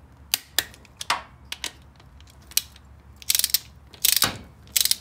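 Ratcheting torque wrench clicking as it tightens rocker arm bolts to 22 ft-lbs. Single sharp clicks come first, then short rapid runs of ratchet clicks, the longest about four seconds in.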